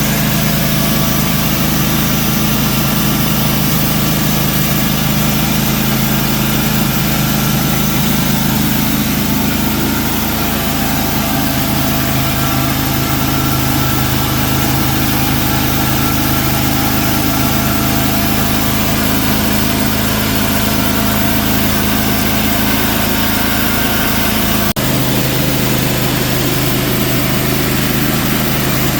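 Wood-Mizer portable sawmill's engine running steadily, its pitch shifting slightly about a third of the way through, with one brief click near the end.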